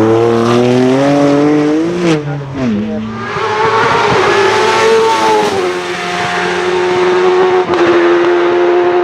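Hillclimb racing car engine under hard acceleration: the note rises, drops sharply about two seconds in, climbs again, then falls back and holds a steadier pitch for the rest.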